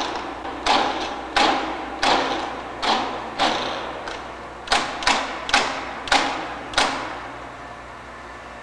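A run of sharp knocks, each ringing briefly, about ten in seven seconds, then stopping. The knocks come from work on the turbocharger's rotor shaft.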